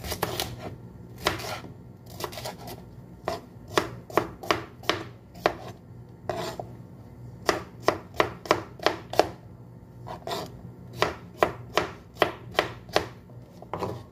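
Kitchen knife chopping a red bell pepper on a wooden cutting board: sharp knife strikes on the board, coming in irregular runs of up to about three a second.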